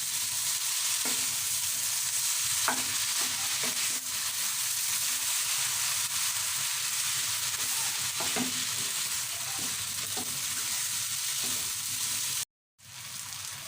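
Chicken chow mein sizzling in a hot pan as it is stirred and tossed, with a steady frying hiss and scattered clicks and scrapes of the spatula against the pan.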